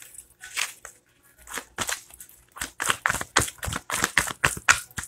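Tarot cards being shuffled and handled: a run of crisp flicks and rustles, sparse at first and quicker and louder after about two and a half seconds.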